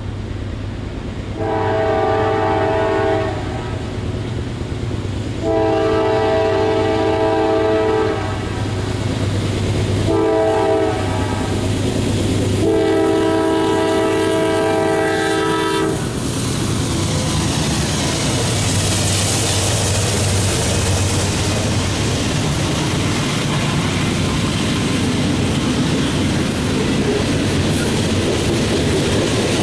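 Diesel freight train's multi-chime air horn sounding two long blasts, one short and one long, the grade-crossing signal, as the train approaches. After the last blast, about halfway through, the locomotives and freight cars pass, engines running and wheels clattering over the rail joints.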